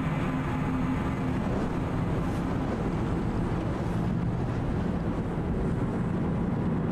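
Steady road and engine noise inside the cabin of a moving Honda car, with a low, even hum.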